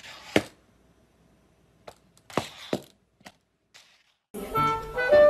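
A few sharp clicks and short bursts of rustling hiss with quiet gaps between; the loudest click is about half a second in. Music with wind instruments starts about four seconds in.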